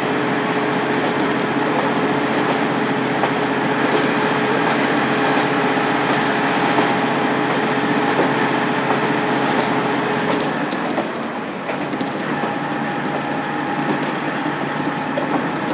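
Onboard running sound of a KiHa 47 diesel railcar with its original DMF15HSA diesel engine: engine and wheels on rail, heard from inside the car. A steady held tone stops about ten seconds in, and the overall sound dips briefly just after.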